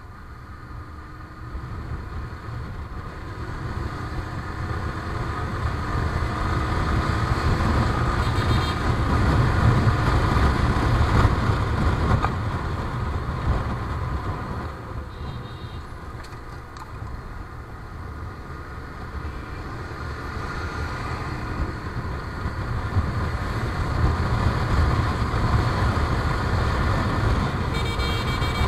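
Yamaha motorcycle under way on the road: wind buffeting the action camera's microphone over the engine, the noise swelling and easing with speed. Short horn toots sound a few times, once near the end.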